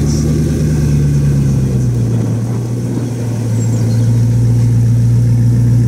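A car engine running steadily with a loud, even hum. Its pitch drops slightly about two seconds in.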